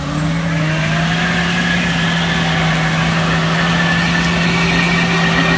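A Nissan Patrol 3.3 six-cylinder and a Mitsubishi L200 2.5 TDI run hard at steady, high revs, with tyres spinning in loose dirt.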